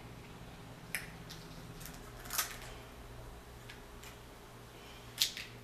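Scissors snipping and king crab shell crackling as the legs are cut open and picked, a few scattered sharp clicks with the loudest about two and a half seconds in and near the end. A faint steady low hum runs underneath.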